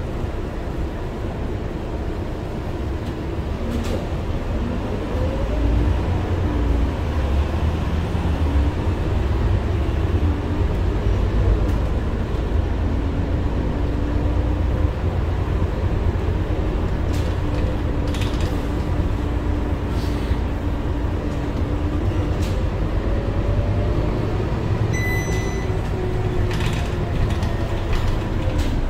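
Scania K230UB Euro 5 bus heard from inside, its diesel engine running under load with a low rumble as the bus pulls away and drives on, the drone rising and falling in pitch several times. Cabin fittings creak and rattle now and then, and a short electronic beep sounds near the end.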